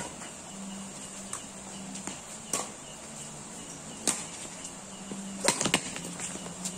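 Badminton rackets striking a shuttlecock in a doubles rally: sharp pops about once a second, with a quick run of louder hits near the end, over a steady high-pitched insect drone.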